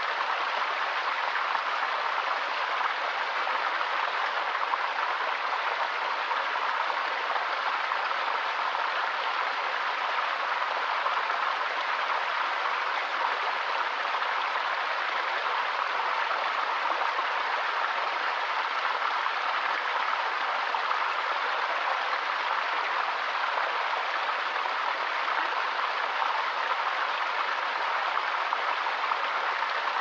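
River water flowing: a steady, even rushing with no distinct splashes or breaks.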